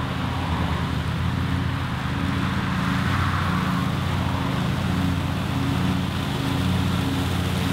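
Zero-turn riding mower's engine running steadily, its blades mulching leaves on the lawn as it drives over them.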